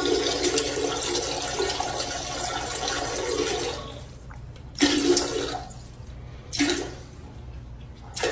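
Toilet flushing: a rush of water lasting about four seconds, followed by a few shorter spurts of water.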